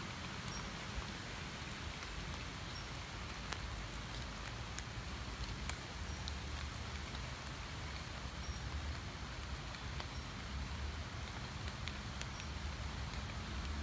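Steady rain falling on standing water and leaves: a dense, even hiss dotted with scattered sharp drop ticks.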